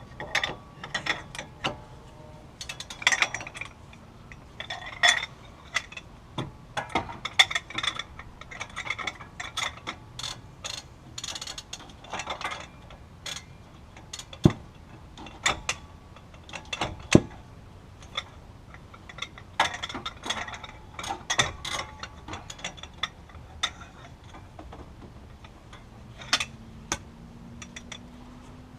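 Socket ratchet clicking in short irregular runs as a hub-assembly bolt is turned, with scattered metallic clinks and a few louder single knocks.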